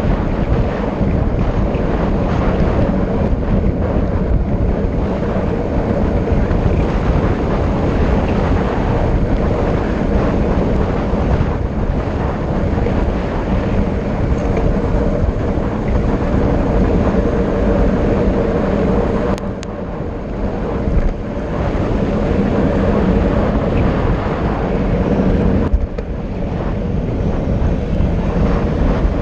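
Wind rushing over the microphone during a fast downhill descent, with a steady road-noise hum underneath. The noise eases briefly about two-thirds of the way in and again near the end.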